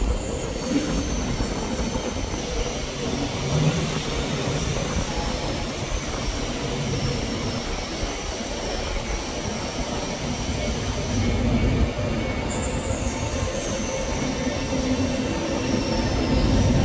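Train rolling along the tracks with a steady rumble and a thin, high wheel squeal that wavers throughout and rises higher for a few seconds in the second half.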